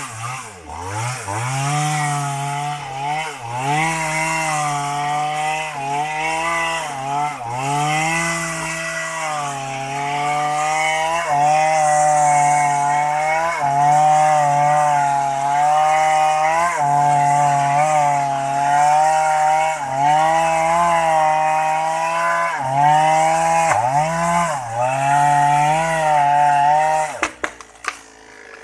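Small chainsaw running at high revs while cutting into a tree, its engine pitch dipping and recovering again and again as the chain bogs in the cut. Near the end the engine drops off, with a few sharp cracks.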